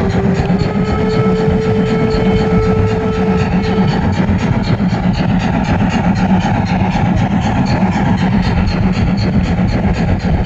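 Gauge 0 model steam locomotive running along its track, heard from a camera riding on the train: a loud, steady running noise with a fine regular ticking over it. A steady tone sounds for the first few seconds.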